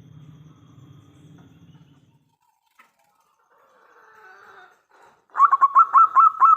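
Zebra dove (perkutut) singing: a loud, rapid series of short, clipped cooing notes, about five a second, starting about five seconds in, after a faint low hum that dies away about two seconds in.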